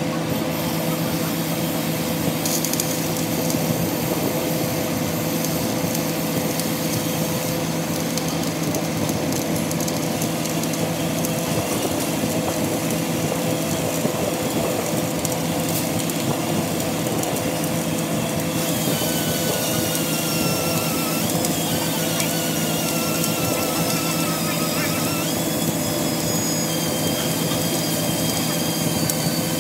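Welding arc crackling steadily for a long run, over a continuous low machine hum.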